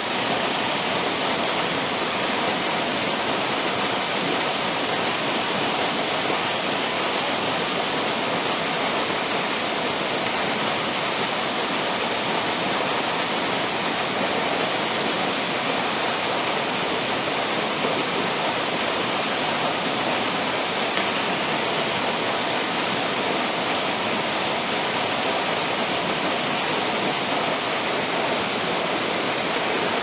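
Waterfall, a steady, even rush of falling water.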